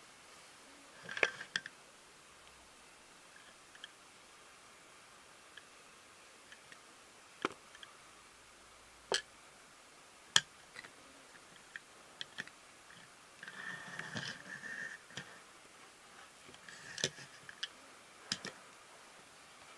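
Scattered sharp clicks and a short rustle about two-thirds of the way through, the sound of small objects being handled.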